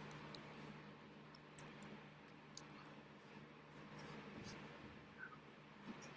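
Faint scattered ticks and light taps of hands meeting and brushing against each other and the shirt as a person signs, over a low steady hum of room tone.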